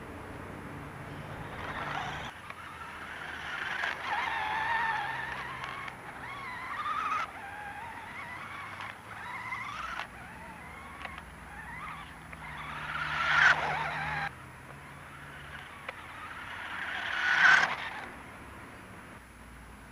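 Taiyo Jet Hopper radio-controlled buggy's motor whining, its pitch rising and falling as it speeds up and slows across the dirt. It peaks loudly twice as the buggy passes close by, then fades.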